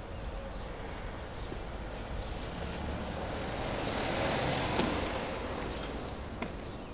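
A car passing by, its rushing tyre and engine noise swelling to a peak about four seconds in and then fading away, with a light click near the loudest point.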